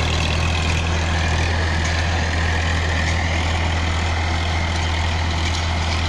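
Massey Ferguson 7250 tractor's three-cylinder diesel engine running steadily under load, with a constant low drone, while it pulls a rotavator working the soil.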